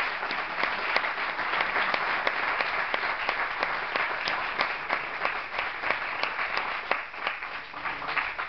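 Audience applauding, many hands clapping, thinning out gradually and stopping near the end.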